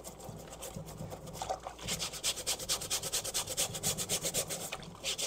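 Small scrub brush scrubbing a wet Tilley hat in soapy water, in quick back-and-forth strokes. The scrubbing is lighter at first and becomes a fast, even run of scratchy strokes, about four or five a second, from about two seconds in.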